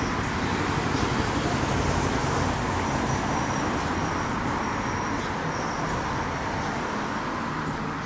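Street traffic: a nearby motor vehicle running past on the road, a steady engine and tyre noise that eases slightly toward the end. A faint high whine comes and goes in the middle.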